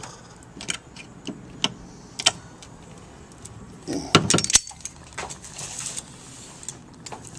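Thin galvanized steel sheet being bent and crimped with a small hand tool: scattered metallic clicks and clinks, a cluster of louder clanks about four seconds in, and a brief rattle of the sheet just before six seconds.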